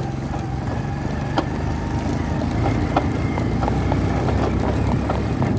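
A motor vehicle's engine running steadily at a low, even drone, with scattered sharp clops of a horse's hooves striking a dirt road.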